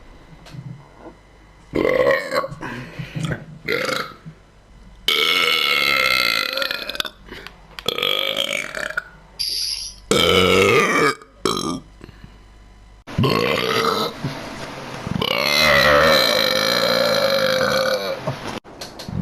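A person burping over and over: a run of about eight loud burps with gliding pitch, some short and some drawn out for two to three seconds, with brief pauses between them.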